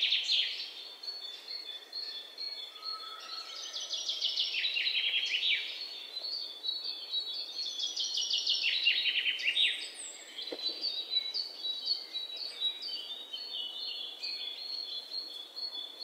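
Birdsong from several small birds: quick runs of chirps that fall in pitch, repeating and overlapping throughout.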